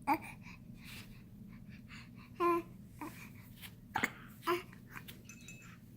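Young baby making short coos and squeaks, about five brief separate sounds with pauses between.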